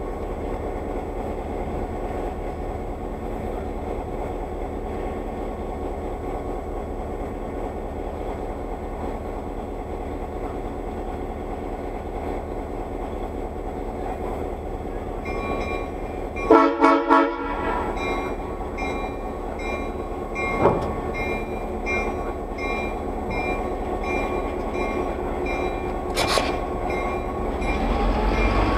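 EMD GP9 diesel locomotive's two-stroke V16 engine running steadily close by, with a short loud horn sounding a little over halfway through. The engine picks up near the end as the train starts to move.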